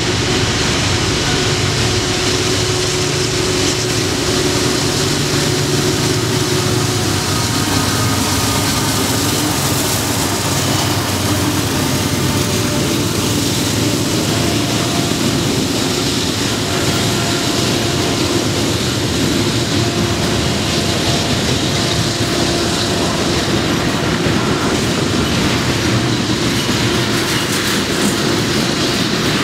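Freight train rolling past: a loud, steady noise of railcar wheels running over the rails.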